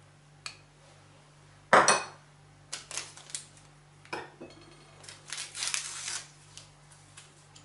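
A metal spoon clinks and knocks against glass bowls as softened butter is scraped off it, the loudest clink a little under two seconds in. Near the end comes a papery rustle as a small paper vanilla sachet is torn open.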